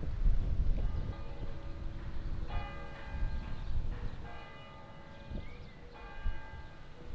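Church bell in the brick church tower ringing, four strokes about a second and a half apart, each note ringing on and fading before the next.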